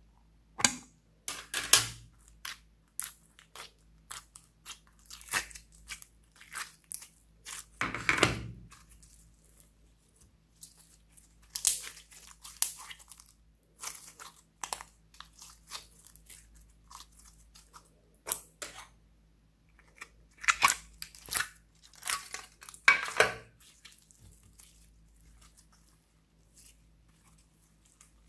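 Pink slime being squeezed, stretched and kneaded by hand: irregular sticky crackles, pops and squelches that come in bunches with short gaps.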